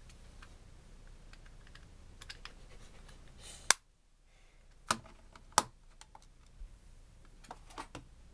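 Plastic clicks and snaps from a wireless mouse being handled while its two AA batteries are fitted. Light scattered clicks, one sharp snap a little under halfway through, two more strong clicks a second or two later, and a quick run of small clicks near the end.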